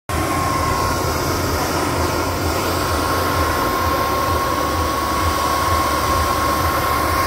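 Electric air blower running, inflating a water walking ball through a hose: a loud, steady rush of air with a steady high whine.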